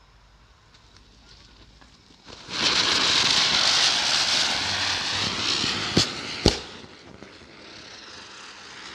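Two chakri ground-spinner fireworks lit, hissing loudly as they spin, starting about two and a half seconds in. Two sharp bangs half a second apart come about six seconds in, and the hiss then weakens and dies away.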